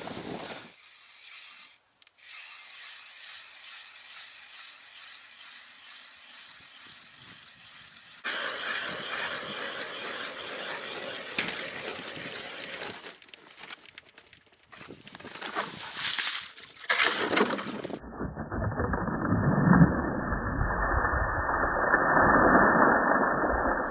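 Hand-cranked ice auger drilling through lake ice: a rasping scrape in several separate stretches. Near the end comes a deeper, muffled stretch as the auger breaks through and water surges up the hole.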